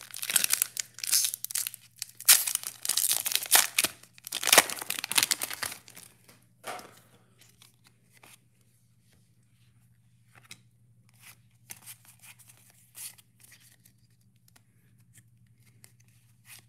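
A Pokémon booster pack's foil wrapper being torn open and crinkled, in loud bursts for the first six seconds or so. After that come faint clicks and rustles as the cards are handled.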